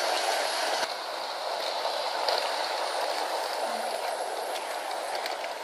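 Model electric train, a 060 EA locomotive pulling passenger coaches, running close by on sectional track: a steady rolling noise of its wheels on the rails.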